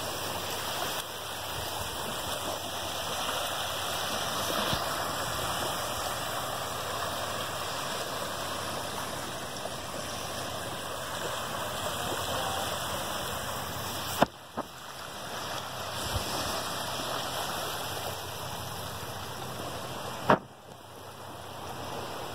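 Small waves lapping and breaking at the edge of a beach, a steady rushing wash of water. Two brief sharp clicks cut in, about two-thirds of the way through and again near the end.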